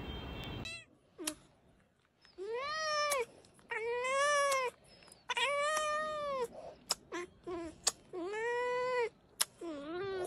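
A tabby cat meowing five times, each meow about a second long and rising then falling in pitch, with a few sharp clicks between them.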